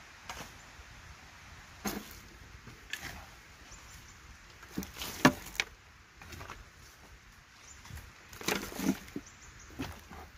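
A hoe scraping up soil and dry leaves and dumping them into a metal wheelbarrow: irregular scrapes and knocks, the sharpest about five seconds in.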